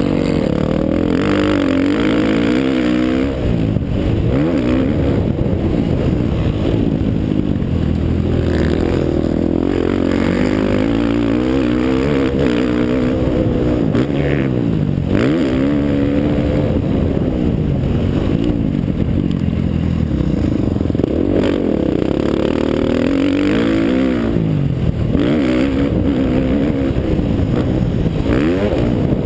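Motocross bike engine at full race pace, heard from the rider's helmet camera, its pitch rising and falling again and again as the throttle is opened and shut through the corners and jumps of a rough dirt track.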